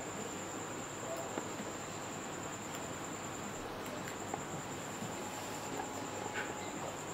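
Crickets trilling in one steady high-pitched tone, with faint small clicks from a guinea pig nibbling an eggplant.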